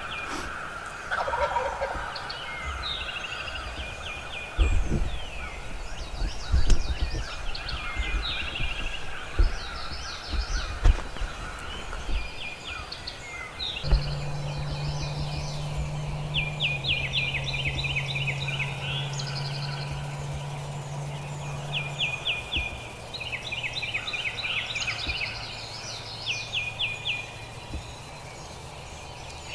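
Wild turkey gobbling, among a chorus of other birds calling. There are low thumps in the first half, and a low steady hum comes in about halfway and steps down in pitch twice.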